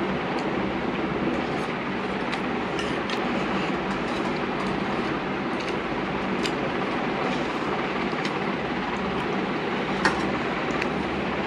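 A steady machine hum and whoosh, with light clinks of a spoon against a steel plate scattered through it and one sharper clink about ten seconds in.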